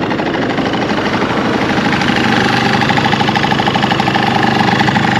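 Honda Live Dio ZX scooter's small two-stroke engine idling steadily with a light, even clattering rattle. The owner puts the rattle down to the muffler or the upgraded cooling fan, not to a failing crank bearing, which he says grinds and rattles more heavily.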